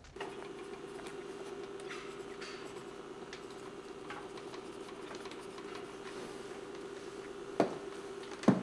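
Pencil scratching on paper over a steady low hum, with two sharp knocks near the end.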